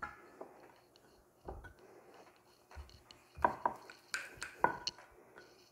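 Wooden rolling pin knocking and rolling on a marble pastry board as a small round of dough is rolled out: a run of light, uneven knocks and clicks, busiest in the second half.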